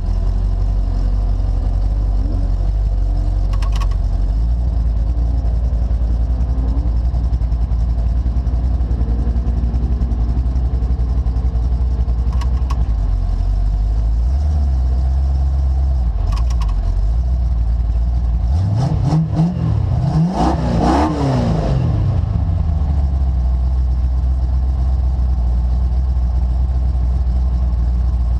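Off-road vehicle engine running steadily under way, its pitch wavering slightly, with a rev that climbs and drops back about two-thirds of the way through.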